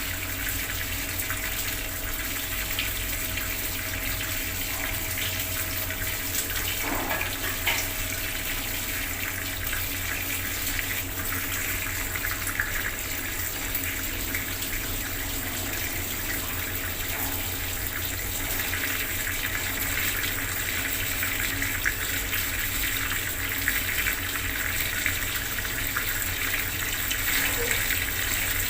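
Water running steadily from a bathroom tap, splashing into the basin below.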